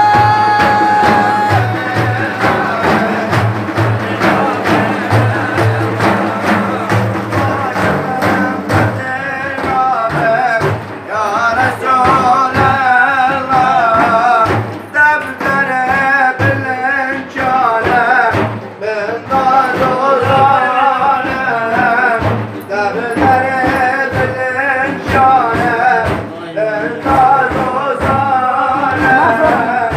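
Male voice singing a Sufi devotional hymn (ilahi) in an ornamented, wavering melodic line over a regular drum beat. One long note is held at the start, and the ornamented singing grows stronger from about ten seconds in.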